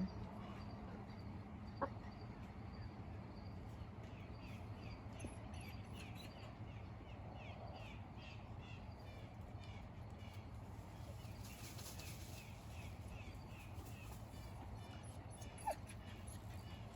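Faint bird calls: runs of quick chirps behind a steady low hum, with a single sharp click about two seconds in.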